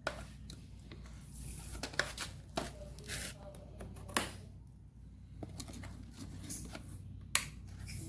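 Scattered sharp clicks and knocks with short rustles, like objects being handled, over a low steady hum.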